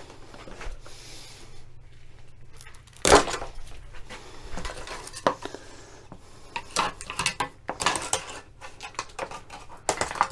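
Irregular metallic clinks and clanks as the riveted steel strip is pried and pulled free from the underside of an MGB rubber bumper. One loud knock comes about three seconds in, then a busier run of clinks and rattles through the second half.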